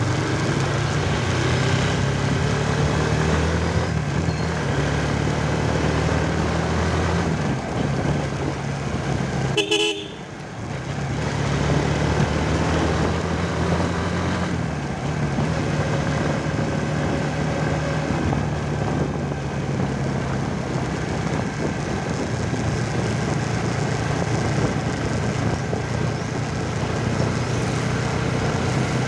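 Motorcycle engine running steadily as it rides, its pitch stepping up or down a few times with speed. A short horn toot sounds about ten seconds in.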